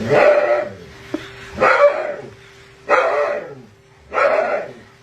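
A dog barking four times, about one bark every second and a bit, each bark dropping in pitch.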